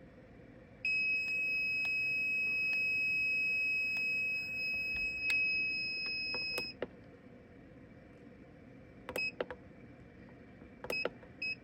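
Electronic beeper sounding one steady high-pitched beep for about six seconds, then a few short beeps of the same pitch near the end.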